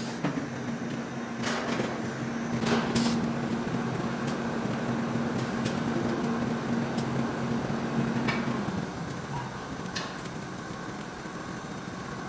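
Assembly-line machine hum, steady and low, that stops about three-quarters of the way through, under scattered light clicks and knocks as parts are handled and fitted on top of a prismatic battery module.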